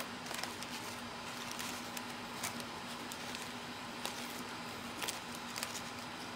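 Faint scattered clicks and light rustling from hands handling small glued paper flowers and craft supplies, over a steady low hum.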